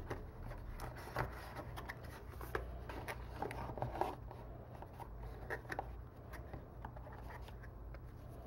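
Cardboard phone box and paper inserts being handled: scattered light scrapes, rubs and taps at an irregular pace, over a low steady hum.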